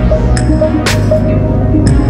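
Background music with a steady bass line and held notes, a swish about a second in, and short high pings.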